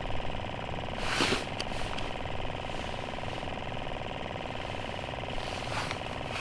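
A steady, rapidly pulsing buzz of an engine running, over a low, uneven rumble; a short rush of noise about a second in.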